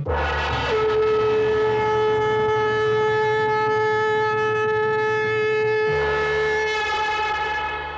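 Production-logo theme music: one long held horn-like note that slides briefly into place at the start, over a low drone that shifts about six seconds in.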